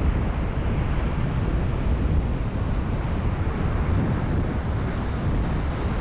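Strong wind buffeting the microphone as a steady low rumble, over the sound of rough surf breaking.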